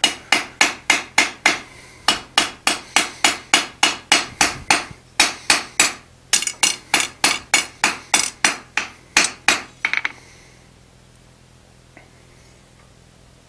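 A hand hammer strikes a hot iron bar's tapered end on an anvil in a quick steady rhythm of about three blows a second, smoothing the taper. There is a short break in the middle. The hammering stops about ten seconds in, leaving only a low steady hum.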